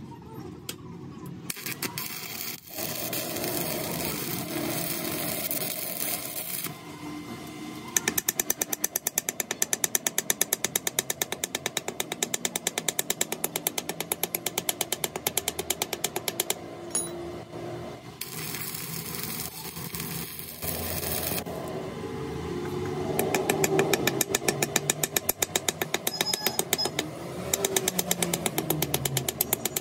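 Rapid, evenly spaced mechanical knocking, several strokes a second, from a power tool or machine. It comes in runs of several seconds over a steady noisy workshop background.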